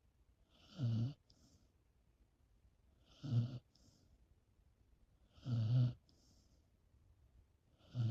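A sleeping pet snoring: four loud, low snores about two and a half seconds apart, each followed by a faint high hiss.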